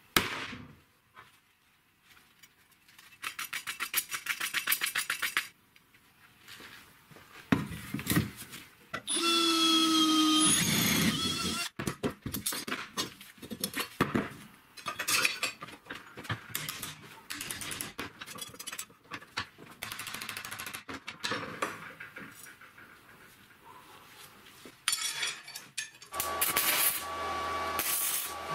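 A run of workshop sounds: a sharp knock, a few seconds of quick rhythmic scraping strokes, and a power tool whining for about two seconds. Then comes a long stretch of uneven rasping strokes from a steel blade cutting a wooden block, and near the end an electric arc welder buzzes steadily.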